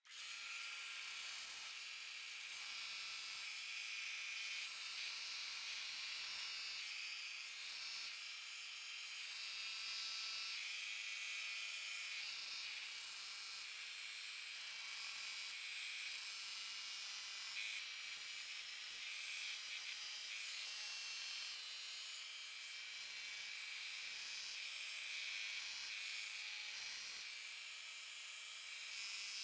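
Sears Craftsman 1/3 HP 4x36-in. belt and disc sander running steadily with a 120-grit belt, roughing the end of a pine block: an even high hiss over a faint steady hum.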